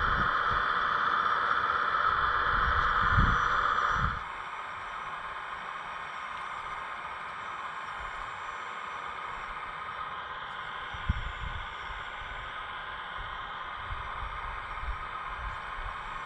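A small electric motor on a scale RC construction machine, likely its hydraulic pump, whirring loudly with some low knocks, then cutting off suddenly about four seconds in. A quieter steady hiss follows, with a single sharp click partway through.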